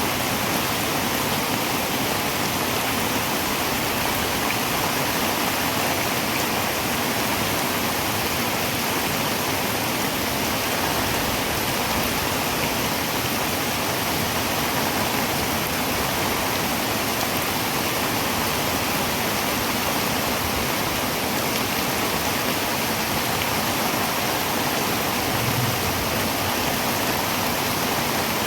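Heavy rain falling steadily on a tin roof, a dense, even hiss of drops with no let-up.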